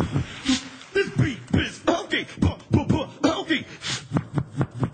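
Human beatboxing into a handheld microphone: a fast beat of mouth-made kick-drum thumps that drop in pitch, mixed with sharp hi-hat and snare clicks, several hits a second.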